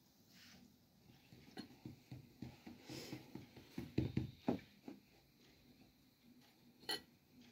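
Soft irregular knocks and rustles of thin wooden rolling pins and hands working flatbread dough on a floured cloth, busiest in the middle, with one sharp tap near the end.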